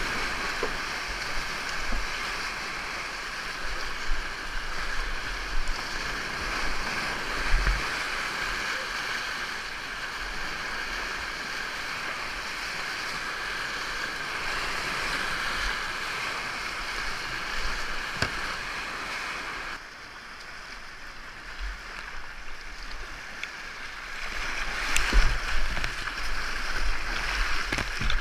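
Whitewater of a river rapid rushing around a kayak, with dull knocks and splashes close to the microphone. The rush drops back about twenty seconds in and swells again, choppier, a few seconds later.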